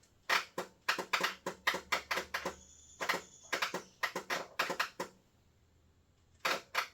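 Rapid, irregular sharp clicks and pops from a 1998 Kohler Command 16 hp mower's starting system as the key is worked and a loose connector is wiggled, with a pause about five seconds in.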